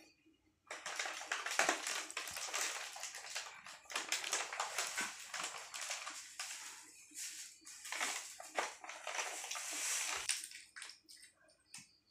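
Plastic food packaging crinkling and rustling as it is handled, a dense crackle with short breaks that stops shortly before the end.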